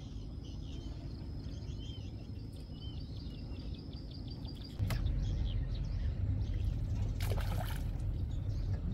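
Small birds chirping over a steady low outdoor rumble. A little under five seconds in there is a click and the rumble grows louder. Between seven and eight seconds in, a hooked fish splashes briefly at the water surface as the fishing pole is lifted.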